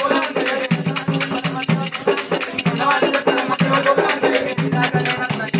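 Oggu katha folk music: fast, steady percussion with rattling and jingling over held low notes, with a bright high shimmer of jingles from about half a second in until about three seconds in.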